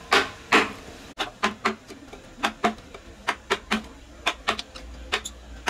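Wooden mallet striking a carving chisel into wood: two hard knocks near the start, then a steady run of lighter, quick knocks at about four a second.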